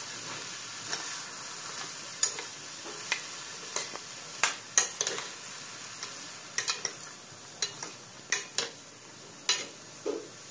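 Diced vegetables frying in a non-stick kadai with a steady sizzle, stirred with a steel spatula that scrapes and clinks against the pan at irregular intervals, about once or twice a second.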